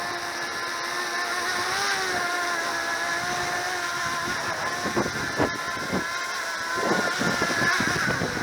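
DJI Mini 2 drone's propellers whining at a steady pitch that wavers slightly, with a few short thumps about five to seven seconds in.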